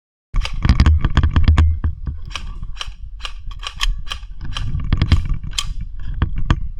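Airsoft guns firing: a fast run of sharp shots, then more scattered single shots and short strings, over a low rumble on the microphone. It starts abruptly a moment in.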